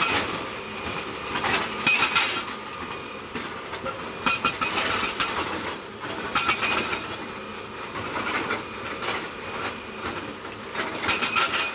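Excavator-mounted hydraulic rock breaker hammering stone in bursts of rapid blows, over a continuous mechanical clatter. The loudest bursts come at the start, about two seconds in and near the end.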